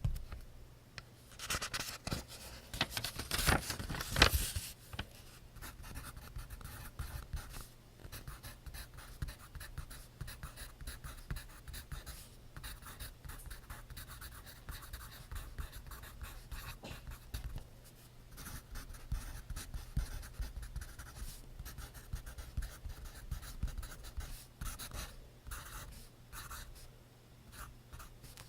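Pencil scratching across notebook paper in quick, continuous writing strokes, louder for a couple of seconds near the start.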